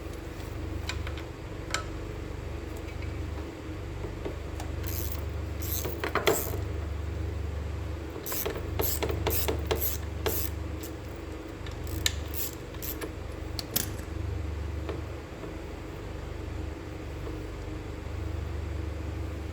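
Ratchet wrench clicking in three short spells as a 5 mm hex bolt is worked loose, behind a low hum that comes and goes.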